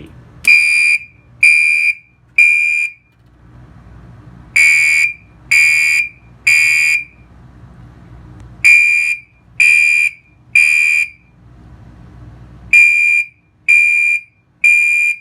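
Fire alarm sounding in the temporal-three pattern: three loud, shrill beeps about a second apart, then a pause, repeated four times. This is the standard evacuation signal.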